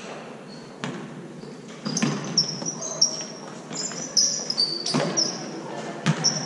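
Basketball bouncing on a hardwood gym floor, several separate thuds about a second apart. Sneakers squeak in short, high chirps, more often from about two seconds in as the players run.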